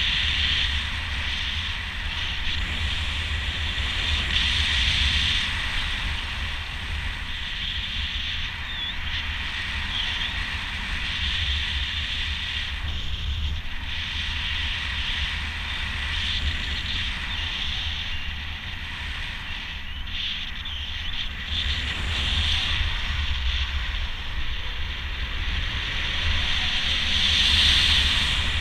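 Wind rushing over the microphone during a speedflying flight: steady low buffeting with a hiss of airflow on top, swelling louder about five seconds in and again near the end.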